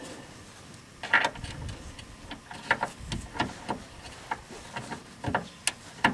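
Irregular metal clicks and clinks of a socket and wrench being worked onto the steering rack's mounting bolts, a dozen or so sharp clicks starting about a second in.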